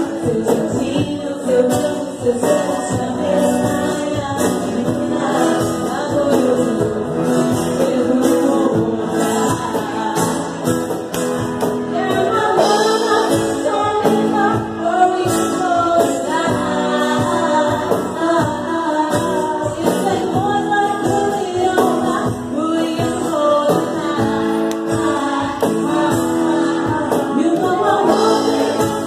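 Live band music: a woman singing into a microphone, backed by strummed acoustic guitar and a drum kit with cymbals.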